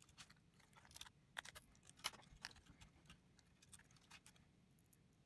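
Faint, scattered small clicks and taps of fingers handling a laptop keyboard's ribbon cables and pressing them into their connectors, mostly in the first half.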